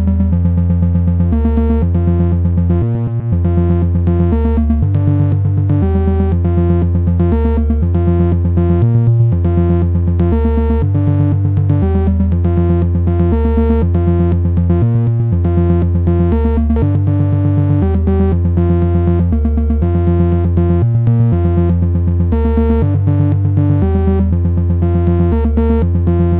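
Eurorack modular synthesizer patch playing a sequenced analog voice with two added voices from two Noise of Antimatter Subshaper modules in parallel. One Subshaper processes the pitch CV to send altered pitches to a second oscillator, and the other turns the original voice's audio into a clock-divided subharmonic pattern. The result is a steady stream of bass-heavy synth notes, changing pitch every half second or so.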